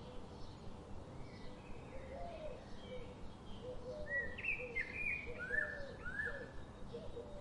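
Several birds chirping and calling over a steady outdoor noise bed. Short low calls repeat throughout, and louder, higher chirps come in about four seconds in, including two quick downward-sliding notes.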